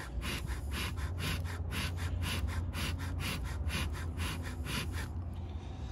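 Bee smoker bellows pumped quickly, a rhythmic whoosh of air about three puffs a second, stopping about five seconds in. The pine-shaving fuel is still smouldering and sends out thick smoke with each puff.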